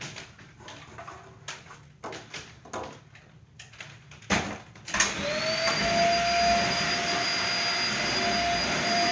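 Several knocks and clicks of handling, then about five seconds in a vacuum cleaner is switched on: its motor whine rises quickly and settles into a loud, steady run.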